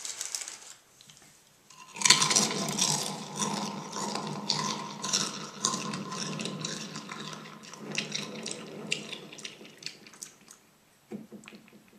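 Cool Ranch Doritos being chewed right up against a karaoke microphone with echo turned up: a loud, crackly crunching that starts about two seconds in, runs dense for several seconds and dies away near the end.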